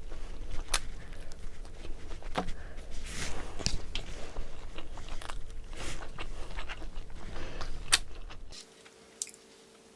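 Close-miked eating sounds: a person chewing and biting food, with many short sharp mouth clicks. The sound drops away almost to silence about three-quarters of the way through.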